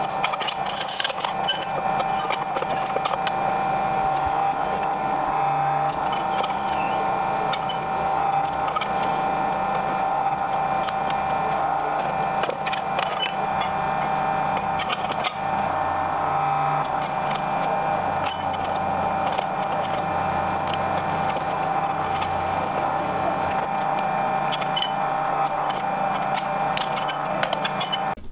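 Electric hydraulic pump of a shop press running steadily with a constant whine, its lower hum shifting in level several times, and a few light metal clicks.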